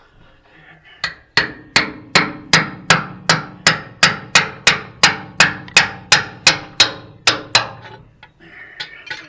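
A steady run of about eighteen hammer blows on the metal of a Ford 9N tractor's rear axle assembly, roughly two or three a second, each with a short metallic ring, driving the axle part loose.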